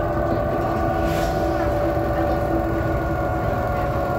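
BredaMenarinibus Avancity city bus under way, heard from inside: the drivetrain runs steadily with several whining tones over a low road rumble. A short hiss comes about a second in.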